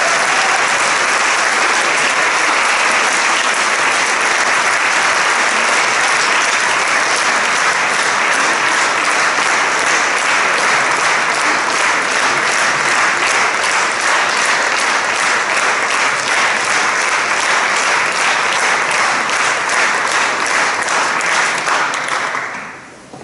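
Concert hall audience applauding, steady and loud, dying away near the end.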